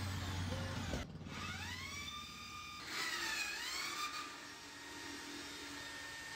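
A wailing, siren-like tone that glides up and holds, then dips and rises again about three seconds in. A low steady hum sounds for about the first second.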